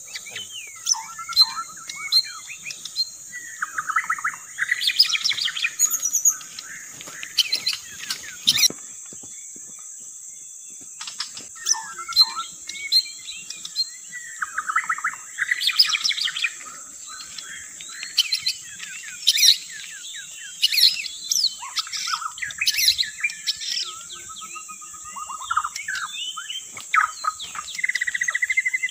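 White-rumped shama singing: bursts of rapid, varied whistles and chattering trills, with pauses between phrases and a pause of about two seconds near the middle. This is the lure song used to draw wild shamas in.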